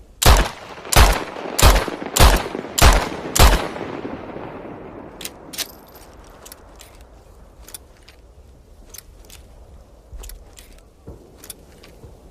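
Revolver fired six times in quick succession, a little under two shots a second, each shot with a long echoing tail. After a pause comes a run of light metallic clicks.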